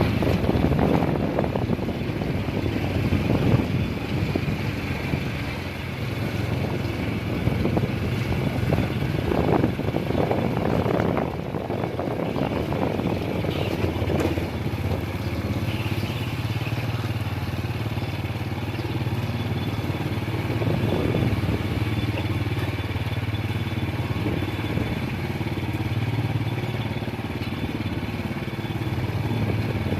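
Small motorcycle engine running steadily as the bike is ridden along a rough track, with scattered knocks and rattles over the first dozen seconds.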